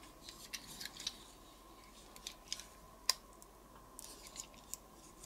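Light clicks and ticks of a small Gobots Puzzler toy car's plastic and metal parts being folded and snapped while it is transformed, with one sharper click about three seconds in.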